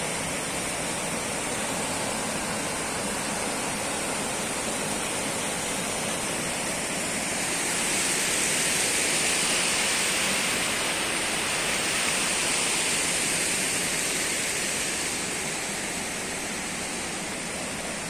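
Fast stream rushing over rocks and small cascades: a steady rush of water that swells a little midway.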